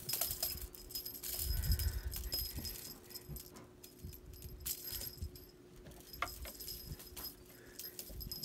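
Feathered teaser wand toy and a cat playing on a carpeted cat tree: scattered light rattles, rustles and taps as the wire wand is waved and the cat paws at the feathers, with a few dull thumps in the first two seconds.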